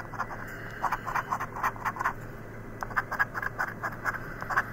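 Scratch-off lottery ticket being scratched by hand in short rasping strokes, about three a second, with a pause of under a second about two seconds in before the strokes resume.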